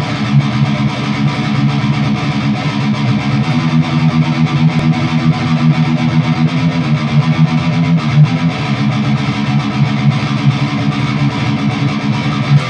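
Heavily distorted electric guitar riffing: a Gibson Explorer played through a Mesa/Boogie Dual Rectifier amp in fast, tight, low chugging riffs, the notes shifting several times.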